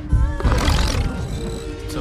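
Intro music with a heavy, steady bass beat and a sliding pitched sample, with a short hissing burst about half a second in.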